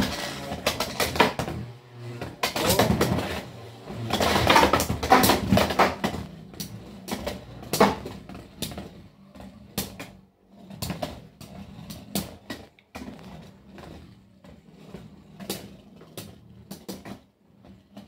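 Two Beyblade X tops, Hellscythe 9-60 Ball and Phoenix Wing 5-60 Point, spinning and clashing in a stadium under its clear plastic cover. Rapid sharp plastic-and-metal clicks and knocks are densest and loudest in the first eight seconds, then thin to scattered hits as the tops circle and bump.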